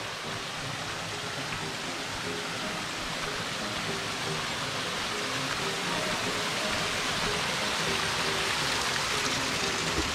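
Water rushing down a rocky stream and over a small waterfall, a steady splashing hiss that grows louder in the second half.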